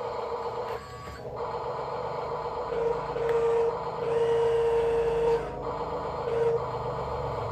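Small electric motor whining in three short runs, the longest in the middle, over a steady low hum.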